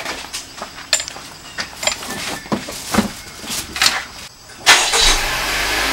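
Irregular clicks, knocks and rustles of gear being handled and packed into an SUV's cargo area beside a plastic cooler and plastic bags. Near the end a louder, steady sound sets in.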